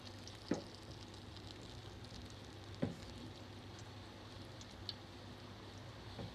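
Hot oil deep-frying potato and spinach pakora batter, sizzling steadily with a fine crackle. Three sharp knocks stand out above it: about half a second in, about three seconds in and near the end.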